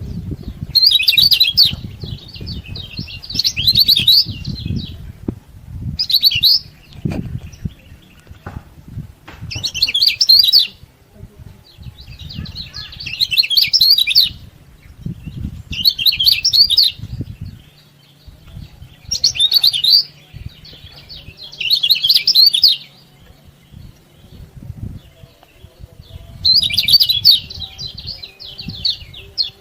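Kecial kuning, a yellow white-eye, singing in repeated bursts of fast, high chirping that come every two to three seconds, over a low rumble.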